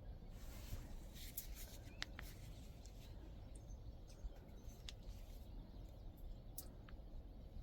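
Quiet outdoor ambience: a low steady rumble with scattered faint, short high-pitched bird chirps and a few light clicks.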